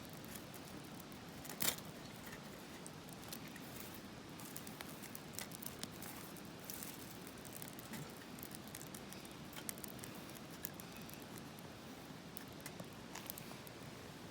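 Small twig fire burning in a Firebox Nano stove, with scattered crackles and pops over a steady low hiss; one sharper crack comes a little under two seconds in.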